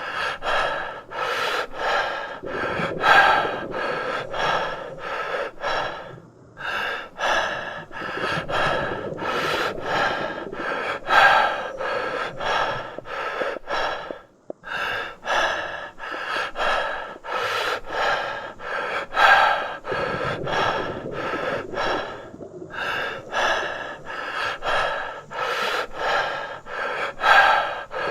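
A person breathing hard in quick, short, sharp breaths, more than one a second. A louder gasp comes about every eight seconds, each cycle starting after a brief pause.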